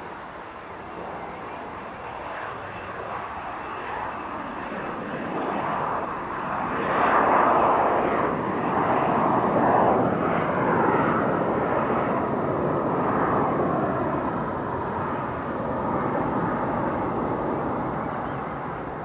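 Bombardier CRJ900's twin rear-mounted GE CF34 turbofans at take-off thrust as the jet climbs out. The broad jet roar grows louder over the first seven seconds or so, peaks, and then slowly fades as the aircraft draws away.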